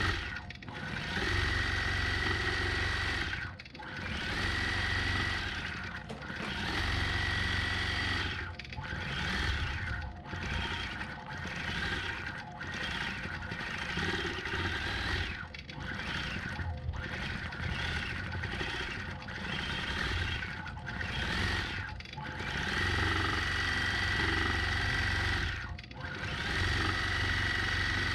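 Longarm quilting machine stitching, its motor and needle running in stretches broken by short dips every second or two, with a steady high whine in some stretches.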